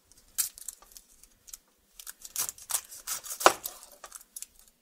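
Dry, papery onion skin crackling as a white onion is cut with a knife and peeled on a plastic cutting board: scattered crisp clicks and crackles, with one sharper knock of the knife about three and a half seconds in.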